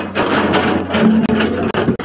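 Hydraulic excavator at work: its diesel engine runs with a steady low hum under a rapid, continuous clatter of knocks and rattles.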